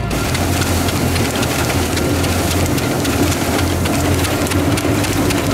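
A machine running: a steady low hum under a loud, even rushing noise.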